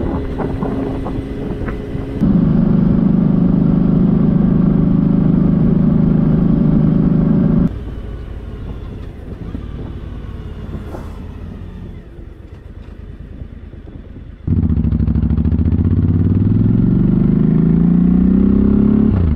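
Vehicle engine running, badly recorded, in pieces that change abruptly: a steady loud drone that drops away about eight seconds in, a quieter stretch, then the engine accelerating with rising pitch for the last few seconds.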